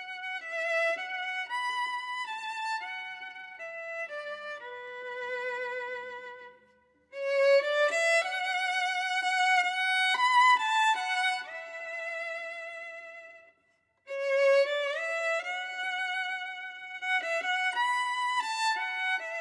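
Background music: a solo fiddle melody with vibrato, moving note to note in three phrases, with brief breaks about seven and fourteen seconds in.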